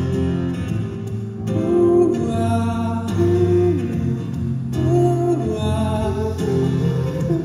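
Live acoustic guitar and Nord Stage 3 keyboard playing a slow song, with a voice singing the melody over them.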